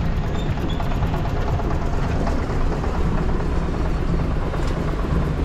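A vehicle running steadily, with a continuous engine and road noise.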